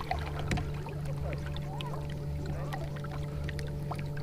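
Steady low hum of a small electric kayak trolling motor running, with a few faint ticks scattered over it.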